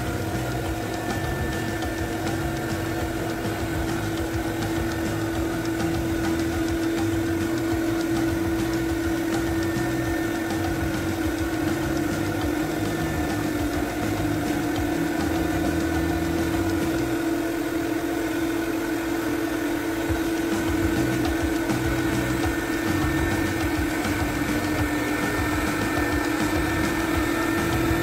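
Clipper carpet extractor running as it is pushed over carpet: a steady motor drone with one strong humming tone.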